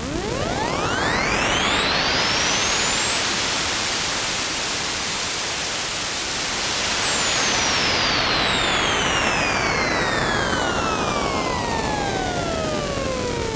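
Alesis Andromeda analog synthesizer sound-effect patch: a loud hiss of noise with a whistling tone that sweeps up for about six seconds, then glides steadily down for the rest, with fainter tones sliding alongside.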